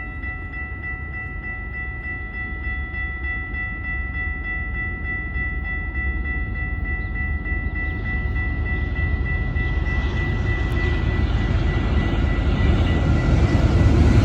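Approaching Amtrak passenger train, a low rumble growing steadily louder, with a steady high-pitched tone that fades away about ten seconds in.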